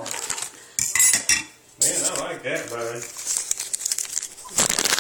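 Hard objects being handled, clattering and clinking, with a cluster of sharp ringing clinks about a second in and a rustling burst near the end.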